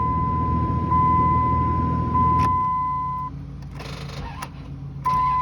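2002 Dodge Ram 1500's 5.9-litre V8 running just after starting, now that the corroded battery terminals have been cleaned, under a steady high-pitched warning tone. About two and a half seconds in there is a click and the engine sound drops quieter. The tone stops soon after and comes back near the end.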